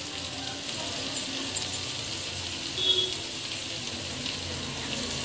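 Diced potatoes and peas frying on a low flame in a steel kadhai, a steady soft sizzle, with a couple of light clicks about a second in.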